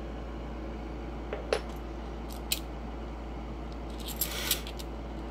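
Kennedy half dollar coins clinking against one another as a stack is handled and sorted in the hand. A few single clicks come first, then a short run of clinks near the end.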